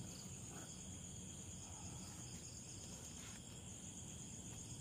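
Faint, steady high-pitched chorus of night insects.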